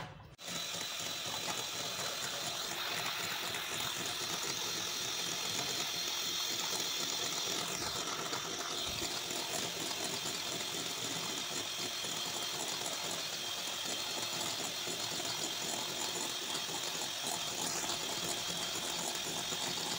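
Electric hand mixer with twin wire beaters running steadily in a glass bowl, whipping eggs, sugar and vanilla until fluffy. It starts up about half a second in.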